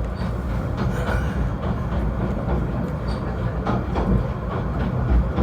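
Snowdon Mountain Railway rack train running: a steady low rumble with frequent irregular clicks and knocks.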